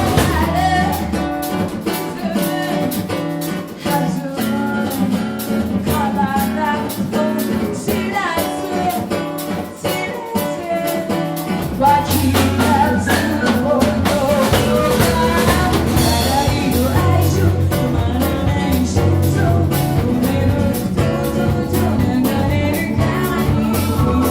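Ensemble music with guitar and drums. The deep bass is absent for the first half and comes back in strongly about halfway through.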